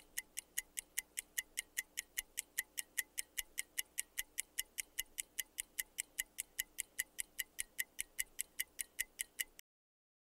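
Clock-style ticking timer sound effect: rapid, even ticks, about four or five a second, that stop abruptly near the end.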